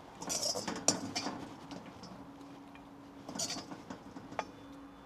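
A serving utensil scraping and clinking against a pan and plate as fried chicken pieces are lifted out and served, in two short spells with a sharp clink in each.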